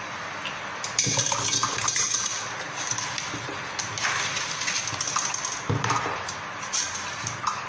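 Hands pressing and scraping wet ground wheat pulp in a stainless-steel sieve over a steel pot, with irregular metal clinks and knocks of the sieve against the pot's rim. The noise steps up about a second in.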